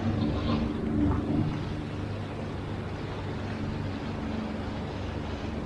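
Sea-Doo personal watercraft's engine running steadily under way, a little louder in the first second or so, with water spray rushing along the hull.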